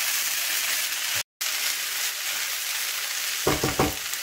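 Fried rice sizzling in a hot non-stick pan while being stirred with a spatula, a steady hiss broken by a brief drop to silence about a second in; near the end a few short scraping knocks of the spatula against the pan.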